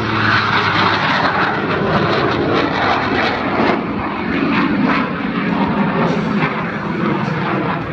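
The Screamin' Sasquatch, a jet-boosted Waco biplane, climbs steeply overhead. Its engines make a loud, rushing roar with no clear pitch, wavering in level as the aircraft climbs.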